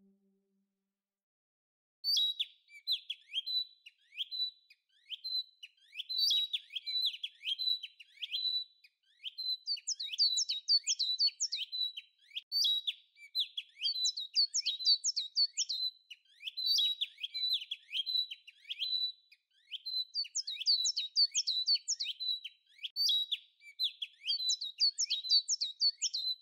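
Small birds chirping in quick runs of high, falling chirps, starting about two seconds in after a brief silence.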